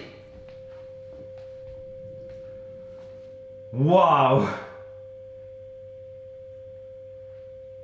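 Steady pure 525 Hz sine tone played through a small Bluetooth speaker. About four seconds in, a loud, short, rising voice-like sound breaks over it.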